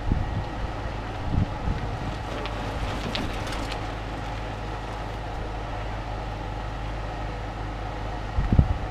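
Steady low rumble and hum of outdoor background noise, with wind buffeting the microphone in low thumps just after the start and again near the end.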